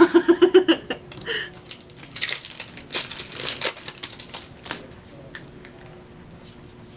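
Foil trading-card booster pack wrapper crinkling as it is handled and opened, in a cluster of crackly bursts over a couple of seconds, then only a few faint ticks.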